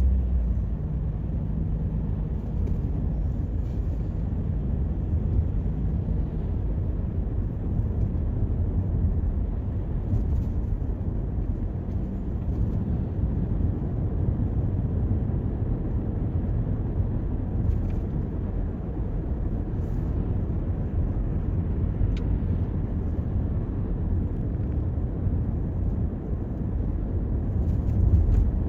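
Toyota Corolla driving along a city street: a steady low rumble of road and engine noise.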